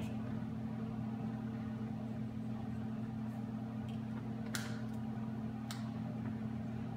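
Dry-erase marker drawing on a whiteboard: two short scratchy strokes, about four and a half and nearly six seconds in, with a few fainter ticks, over a steady low room hum.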